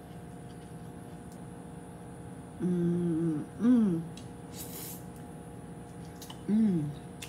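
A woman making closed-mouth "mmm" hums of enjoyment while eating: one held hum, then a short falling "mmm", and a second short falling "mmm" near the end. A brief hiss comes between the last two.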